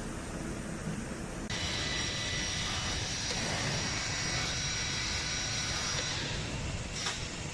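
Woodworking CNC router running, with a steady high spindle whine over the machine noise from about a second and a half in until about six seconds. A sharp click comes near the end.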